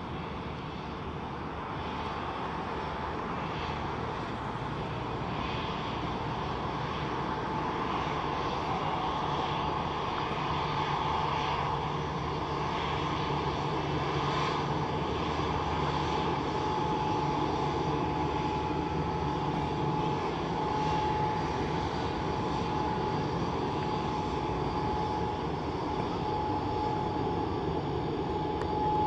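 Boeing 787-9's jet engines running as the airliner taxis past, a steady rumble and hiss that grows slowly louder, with a steady whine coming in about halfway through.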